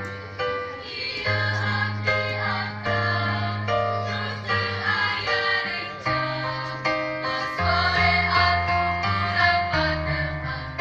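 Mixed choir of women's and men's voices singing a hymn-style song in parts, held notes over a steady low accompaniment.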